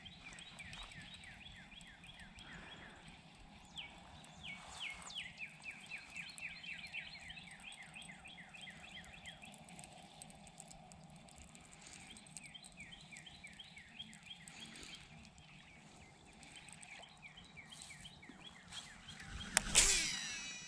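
Small birds chirping outdoors in a rapid series of short, falling notes, with a brief louder sound about a second before the end.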